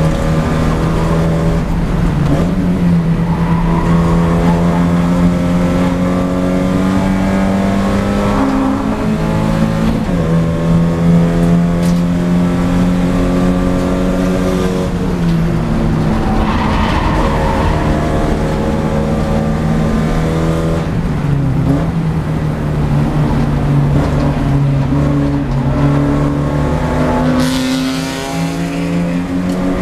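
Porsche 944 Spec race car's four-cylinder engine heard from inside the cockpit, running hard at racing speed. Its note steps up and down several times with shifts and lifts, and there is a brief drop in level near the end as the car slows for a corner.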